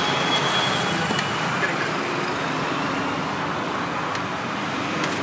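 Steady roadside traffic noise. A faint high whine stops about a second in.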